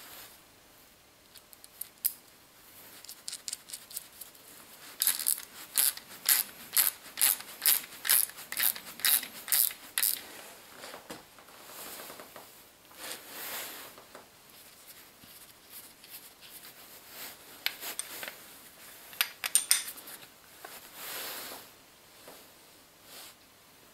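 Small belt-grinder parts being handled and fitted by hand: a run of about a dozen sharp clicks, roughly two a second, then scattered lighter clicks, clinks and rubbing.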